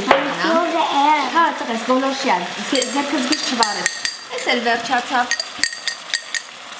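Grated carrot and onion frying in a stainless steel pan, with a steady sizzle, while a voice is heard over the first five seconds or so. From about halfway in come a run of sharp metallic clinks and taps of utensils and jars against the pan.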